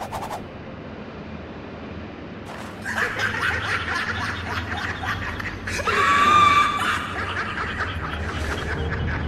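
Laughter: fast, stuttering cackling starts about three seconds in, getting louder and higher-pitched around six seconds before settling back.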